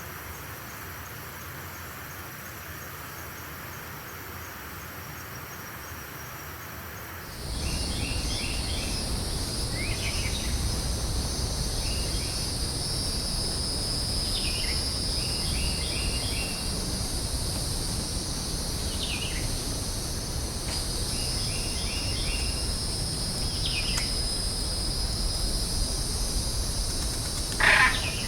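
Tropical forest ambience: a steady high insect drone with repeated short bird calls, each a quick run of three or four notes. About seven seconds in, the sound jumps to a louder insect chorus, and loud calls begin right at the end.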